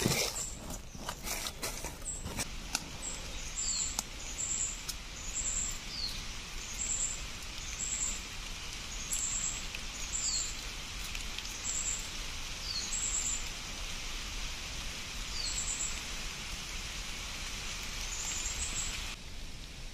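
Steady high hiss of forest ambience with short high chirps repeating every second or so. A few light clicks in the first couple of seconds come from the bamboo trap being handled.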